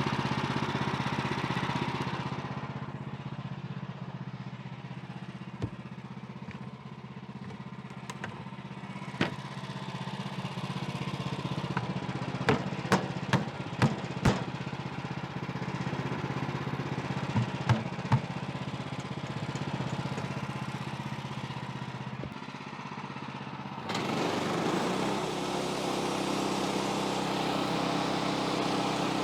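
Small gasoline engine of a portable bandsaw sawmill running steadily, with a series of sharp clicks or knocks in the middle stretch. About 24 seconds in the sound turns louder and brighter.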